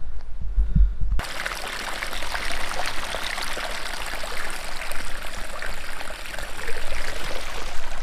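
Small stream of water trickling and splashing over a rock ledge into a shallow rocky pool, starting abruptly about a second in after a low rumble.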